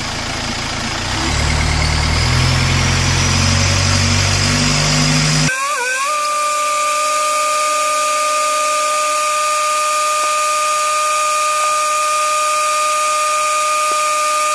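Skoda 1.9 turbo-diesel engine held at raised revs, about 1800 rpm, while a variable-geometry turbo cleaning solution is drawn into it; the revs rise about a second in. About halfway the sound changes abruptly: the deep engine note drops away and a steady high whine is left.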